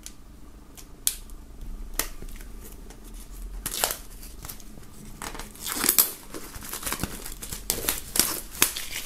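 Utility knife blade slitting the plastic shrink-wrap on a CD digipak, a few sharp clicks in the first couple of seconds, then the thin film crinkling as it is peeled off and crumpled in the hand.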